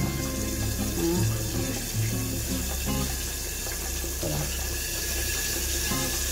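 Pot of just-cooked spaghetti water simmering with a steady bubbling hiss as the noodles are stirred and lifted with a metal pasta server, with background music.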